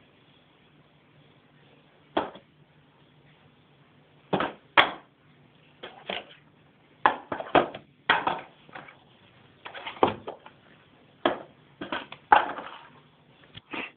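A cat batting and scrabbling at things on a wooden table: irregular knocks and clatters, some single and some in quick runs of two or three.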